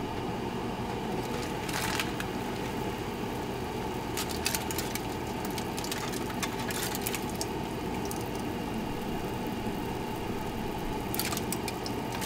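Chicken drumettes simmering in a soy-based sauce in a frying pan: steady bubbling and sizzling, with a few louder crackles scattered through.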